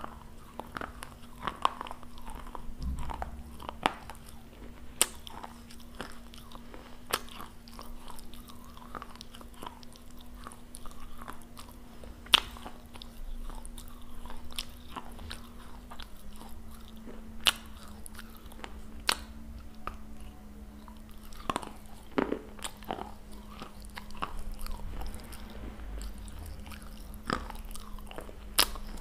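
Close-up biting and chewing of a small fired-clay teacup: sharp, irregular crunches and snaps as pieces of the clay break between the teeth.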